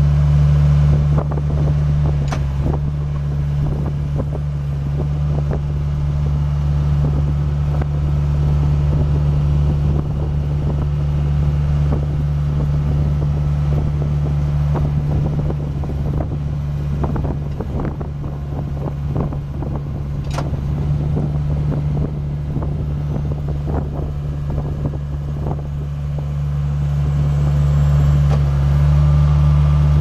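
Bobcat 843 skid steer's Isuzu four-cylinder diesel engine running steadily, with clanks and rattles mostly through the middle stretch.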